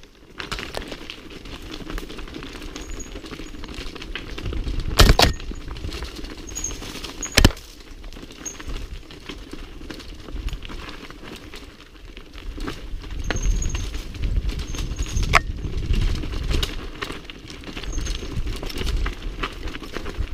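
Mountain bike rattling down a rocky trail: tyres crunching over loose stones while the bike clatters, with two sharp knocks about five and seven and a half seconds in. Wind rumbles on the microphone.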